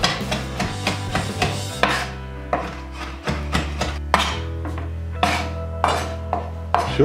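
Chef's knife chopping beef into mince on a wooden cutting board: a quick run of strikes, then slower, more widely spaced ones after about two seconds.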